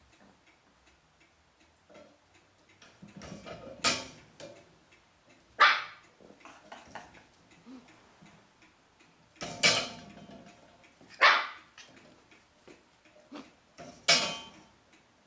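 Lhasa Apso puppy barking at the fireplace screen and tools: five short, sharp single barks spaced a couple of seconds apart.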